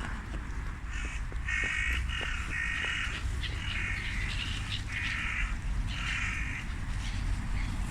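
About five harsh, drawn-out bird calls in a row, each about half a second long, over a steady low rumble.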